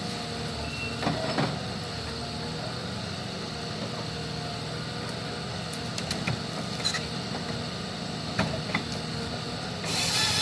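John Deere wheeled forestry harvester's diesel engine running steadily with its hydraulic crane working, a low hum with a few steady whining tones. Several sharp knocks from the crane and harvester head, and a loud rushing hiss starts right at the end.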